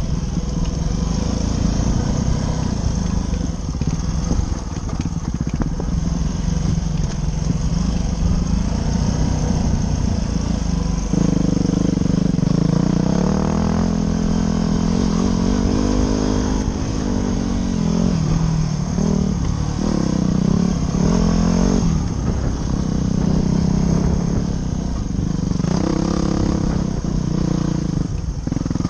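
Dirt bike engine running under way on a dirt trail, its pitch rising and falling with the throttle and gear changes. Wind rushes over the helmet-mounted microphone.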